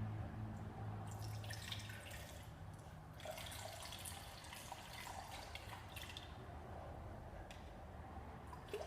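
Water running into a measuring cup in several short spells, as a third of a cup is measured out.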